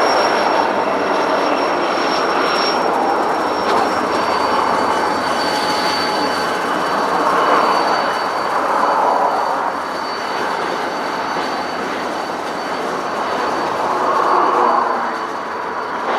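Intermodal freight train rolling past: a steady rumble of the cars on the rails that swells and eases slightly, with thin, high, steady wheel squeal over it.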